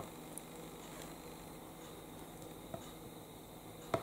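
Small plastic toy pieces being handled and pressed together by fingers, giving a few short clicks: one at the start, a fainter one past the middle and another near the end, over low room noise.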